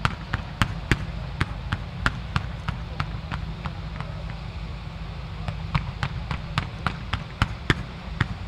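Fireworks going off in a rapid, irregular series of sharp pops and bangs, about two or three a second, thinning out for a moment around the middle, as comets and small shells are fired. A steady low rumble runs underneath.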